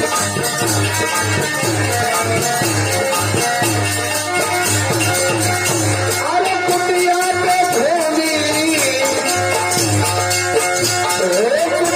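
Folk-style music: a gliding melody over a steady, pulsing beat.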